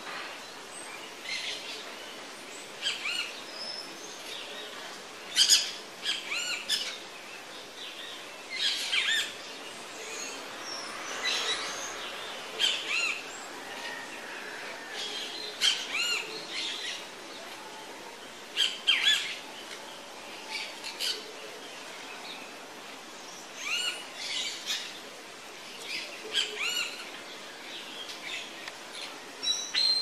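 Small green parakeets calling: short, sharp chirps and squawks in clusters every second or two, loudest about five seconds in and again near nineteen seconds.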